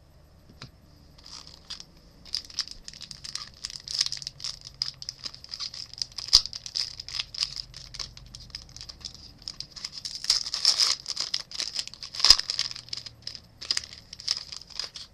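Foil trading-card pack wrapper crinkling and tearing as it is handled and ripped open by hand: a dense run of sharp crackles, loudest with a sharp snap about twelve seconds in.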